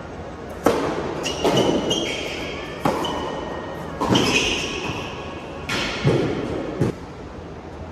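A tennis ball struck by rackets and bouncing during a rally on an indoor hard court. A serve about half a second in is the loudest hit, followed by a series of sharp hits and bounces that echo in the hall. Brief high squeaks come in between.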